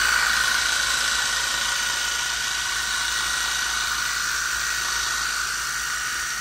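Pressure washer running with a steady high whine, its jet hissing as it sprays the glass and frame of a balcony window in a high-pressure water leak test of the frame's sealant.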